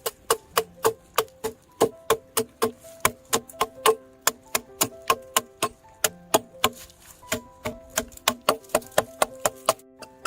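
Background music with a fast, even ticking beat of about three clicks a second under short plucked notes.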